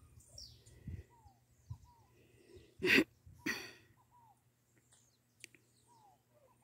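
A helmeted guineafowl hen gives a harsh two-note call about three seconds in, with faint short bird chirps scattered around it. A guineafowl hen calling like this is taken as a sign that she has a nest with eggs nearby.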